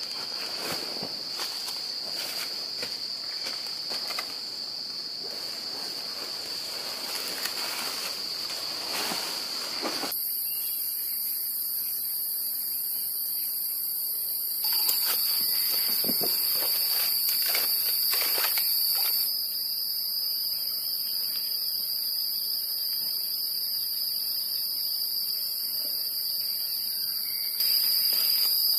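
Forest insects droning in a steady high-pitched chorus, with irregular rustling and crinkling from gear being handled on dry leaves for the first ten seconds or so. From about ten seconds in, the rustling stops and a second, even higher insect chorus joins; the loudness changes suddenly a few times.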